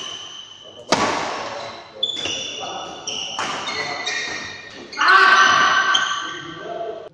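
Doubles badminton rally: rackets smacking the shuttlecock in several sharp hits, the loudest about one second and five seconds in, with court shoes squeaking on the floor between shots and the hits echoing in the hall.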